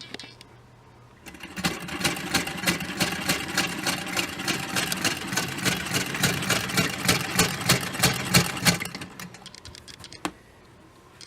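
1904 Singer Model 27K vibrating-shuttle sewing machine, turned by its hand crank, sewing in a rapid, even clatter of about five stitches a second. It starts about a second in and stops near the end, and a single click follows.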